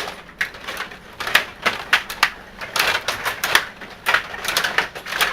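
Table hockey game in play: irregular sharp clacks and rattles of the rods, players and puck, several a second in quick clusters.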